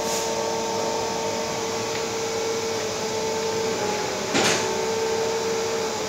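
Takamaz X12 CNC lathe running: a steady mechanical hum with a faint whine, a click right at the start and a short knock about four seconds in.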